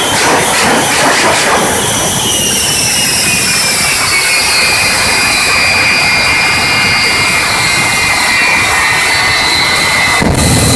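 The Shockwave Jet Truck's three jet engines running with the truck standing on the starting line: pulsing in quick bursts for the first couple of seconds, then a steady high whine that slowly falls in pitch. About ten seconds in the sound switches abruptly to a louder, deeper rush.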